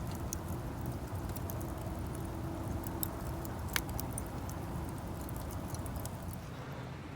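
Wood campfire crackling, with scattered small pops and one sharper pop a little under four seconds in, over a steady low rumble.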